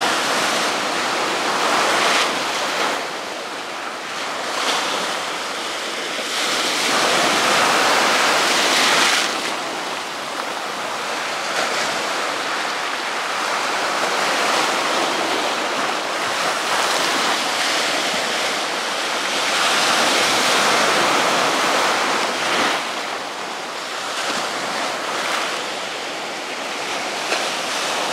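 Sea surf breaking and washing over shoreline rocks: a continuous rush of foaming water that swells louder every several seconds as each wave breaks.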